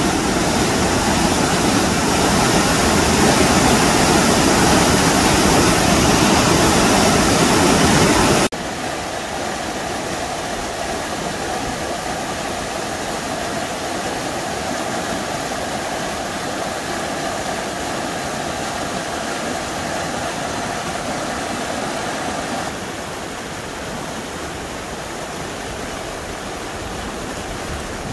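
Creek running high and fast over rock ledges, a steady rush of white water. It is loudest for the first eight seconds, then suddenly softer, and a little softer again about 23 seconds in.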